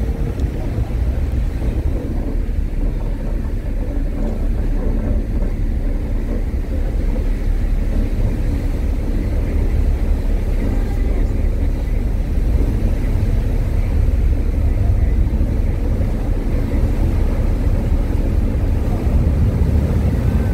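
Steady low rumble of a passenger ferry's engines under way, with a rushing wash of water and air over it.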